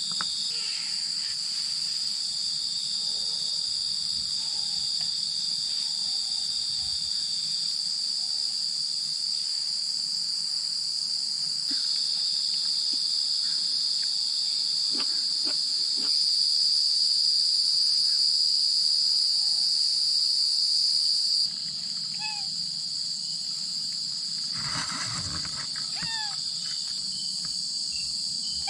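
Night insect chorus: crickets and other insects trilling steadily in several high-pitched layers. It swells louder a little past the middle, then drops back suddenly. Near the end a few short falling chirps join in.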